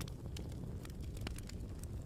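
Campfire crackling: scattered sharp pops and snaps over a low, steady rumble.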